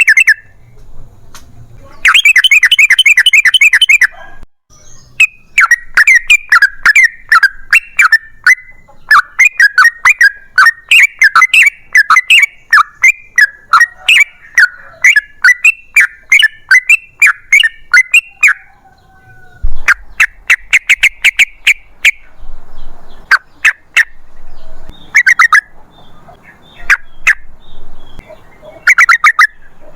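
Yellow-vented bulbul (trucukan) singing loudly: bursts of rapid bubbling, chattering notes, with a long unbroken run of notes in the first half and shorter bursts separated by brief pauses later on.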